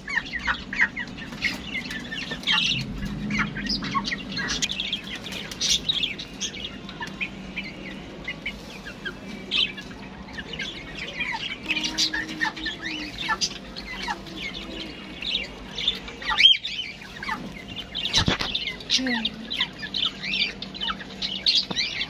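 Chickens clucking and chirping in frequent short calls, with one sharp knock about two-thirds of the way through.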